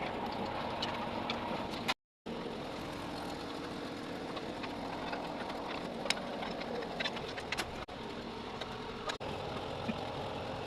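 Small 3.0 kVA generator engine, freshly rebuilt with a new piston and rings, running steadily at a constant speed, with a few light clicks over it.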